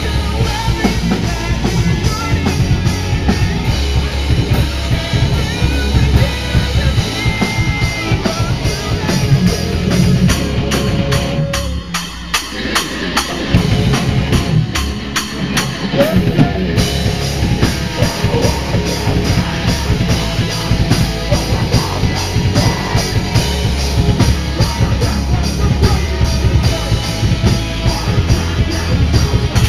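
Loud live heavy metal/hardcore band: distorted electric guitars and a drum kit, with a vocalist on a handheld microphone. About twelve seconds in the low end drops out briefly, then the full band comes back in.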